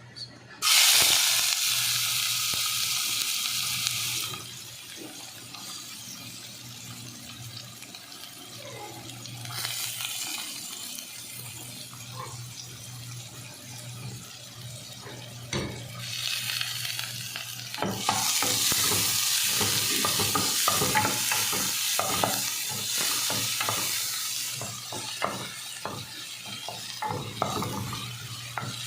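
Food frying in hot oil in a pan: a loud sizzle starts suddenly about a second in and drops back after about three seconds, then the sizzling goes on while a utensil stirs and clicks against the pan, louder again in the second half.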